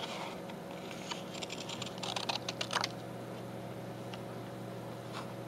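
Scissors snipping through thick paper paint sample cards: a quick run of crisp snips and scrapes between about one and three seconds in, then stillness apart from a low steady hum.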